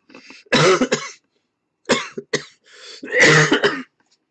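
A man coughing in bouts: a hard burst about half a second in, two short coughs near two seconds, and another long burst around three seconds in.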